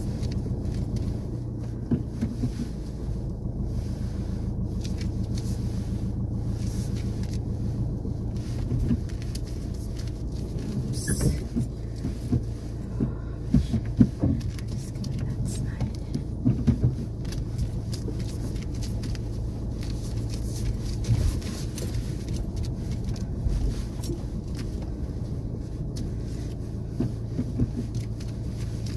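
Car engine and road noise heard from inside a moving car: a steady low hum, with a few knocks and rattles around the middle.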